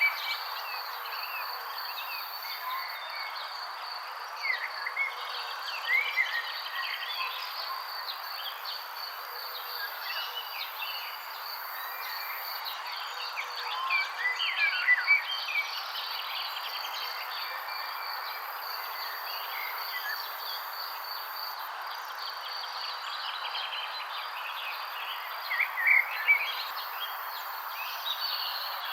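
Birds chirping in short clusters of quick notes, loudest a few times: about five seconds in, in the middle and near the end. Under them run a steady high insect trill and a soft background hiss.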